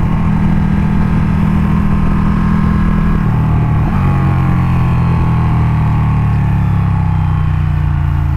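Ducati Panigale 1299S sportbike's L-twin engine pulling hard at speed through curves, heard onboard with wind rush over the microphone. The engine note shifts about three seconds in, then settles again.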